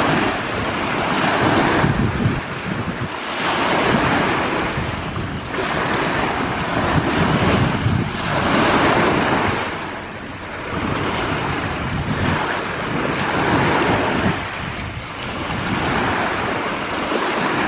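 Waves washing ashore, the rush of water swelling and ebbing every two to three seconds, with wind buffeting the microphone.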